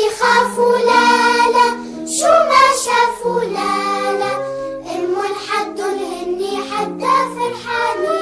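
Children's song: high voices, tagged as child singing, sing a melody over an instrumental backing of held notes.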